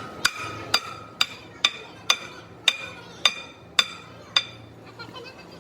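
A hammer striking metal nine times at about two blows a second, each blow ringing briefly, with a few lighter taps near the end.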